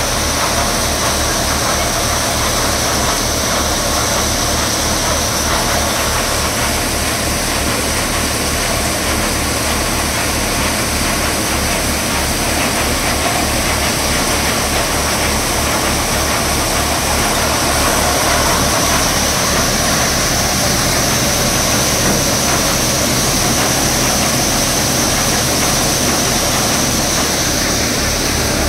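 Tractor-driven Deepak mustard thresher running steadily: the tractor's diesel engine holds a constant fast beat under load while the thresher's drum and blower add a continuous rushing whir with a steady high whine on top.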